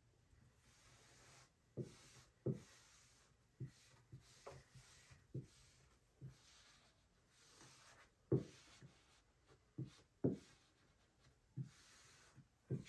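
Squeegee strokes over a wet vinyl decal on a car hood: faint swishing and rubbing as water and air bubbles are pushed out from under the vinyl, with about a dozen short, irregular knocks.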